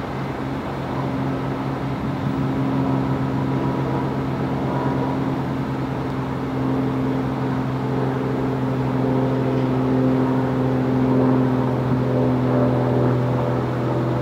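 Steady low engine drone with a strong hum and a steady tone above it; about halfway through, a cluster of higher tones joins and climbs slowly in pitch as the sound grows a little louder.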